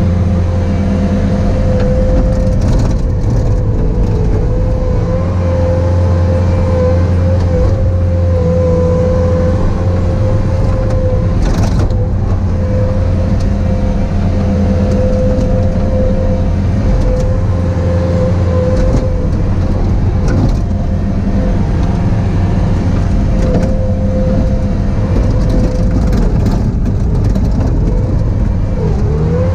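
Bobcat T595 tracked skid steer's diesel engine running steadily at working speed, with a steady whine over the engine note that wavers slightly.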